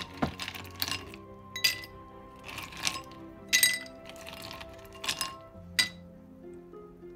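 Ice cubes dropped one at a time into a glass tumbler, each landing with a sharp glassy clink, several in a row about a second apart, over background music.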